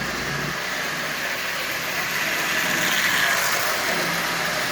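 Marx Commodore Vanderbilt tinplate toy locomotive, an electric motor (likely out of a Marx 400) in a converted wind-up shell, running fast on full 12 volts DC: a steady motor whir with wheels running on the tinplate track, getting a little louder about three seconds in.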